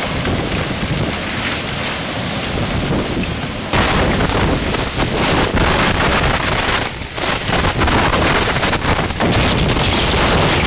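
Violent storm wind gusts and driving rain buffeting a camera's microphone in a loud, steady rush of noise. It jumps louder about four seconds in.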